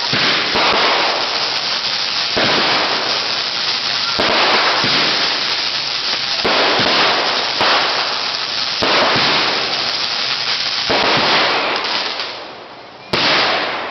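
Firework burning with a loud, continuous hissing crackle that surges about once a second, dying away near the end before a sudden new loud burst.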